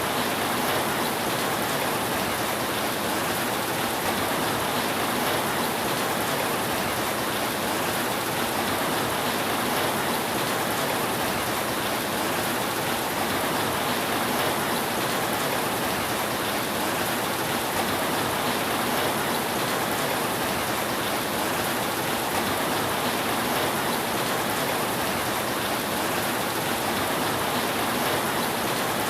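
Steady rain falling on a roof: an even, unbroken hiss with no thunder.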